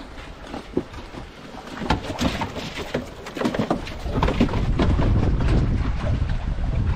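Irregular knocks and clatter of a landing net, with a landed fish in it, against the wooden boat and cooler. A low rumble of wind on the microphone grows louder about four seconds in.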